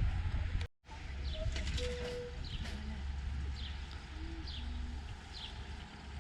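A small bird calling outdoors, a short falling chirp repeated about once a second, over a low rumble of wind on the microphone.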